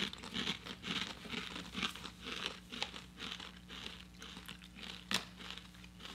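Kettle-cooked potato chips crunching as they are chewed, in quick irregular crunches that thin out after about three seconds. One sharp click about five seconds in.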